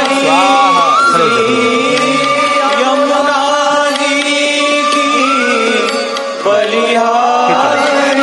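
Hindu devotional bhajan music: a voice singing over steady, held instrumental tones.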